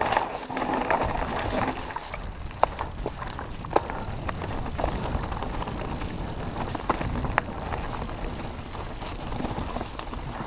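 Mountain bike descending a rocky dirt singletrack: a steady low rumble of tyres rolling over dirt and stones, with scattered sharp clicks and rattles from the bike as it hits rocks.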